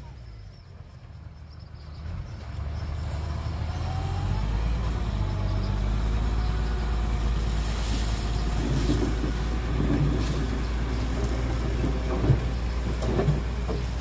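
Heavy diesel engine running, growing louder about two seconds in and again a couple of seconds later, then holding steady, with a sharp knock near the end.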